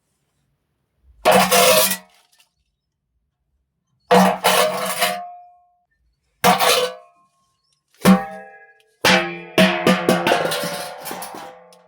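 Steel water pot (binde) being knocked and rattled for foley: five bursts of metallic clanging, each with a ringing tone. The last is a longer run of strikes that rings out.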